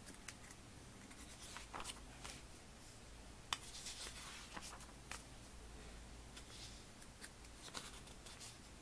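Glossy catalog pages being handled and turned by hand: soft paper rustles and crinkles with scattered light ticks, and one sharp snap of a page about three and a half seconds in.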